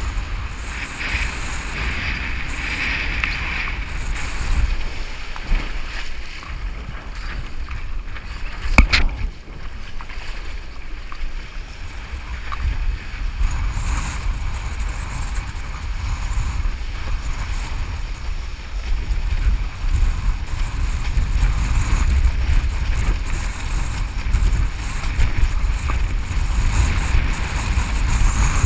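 Wind buffeting the camera microphone as a windsurf board planes fast through foamy chop, with a steady rush and hiss of water and spray. A sharp knock about nine seconds in is the loudest moment.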